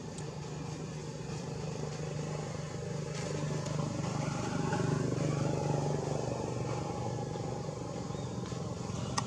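An engine humming steadily, growing louder toward the middle and then easing off a little.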